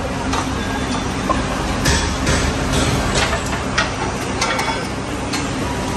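Scattered metal clinks and knocks, about eight over a few seconds, as a car's steering rack is worked loose and lowered from under the car by hand, over a steady workshop hum.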